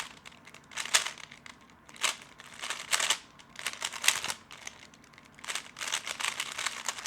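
Plastic 3x3 Rubik's speedcube being turned by hand, giving short bursts of sharp clacking turns about once a second that grow denser near the end.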